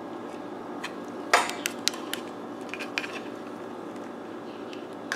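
Plastic wall-plug power adapter and its cord being handled: a sharp knock about a second and a half in, then several light clicks and clinks.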